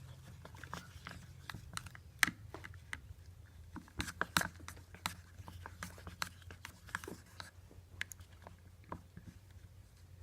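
Glue and red paint being stirred in a bowl: irregular clicks and scrapes of the mixing utensil against the bowl, over a steady low hum.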